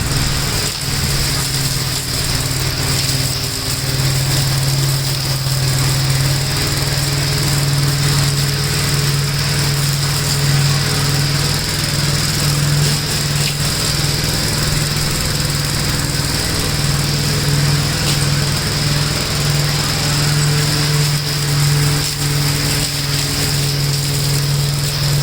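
Single-cylinder engine of a 1969 Gravely L walk-behind tractor running steadily at a constant speed, just after its no-spark fault was repaired.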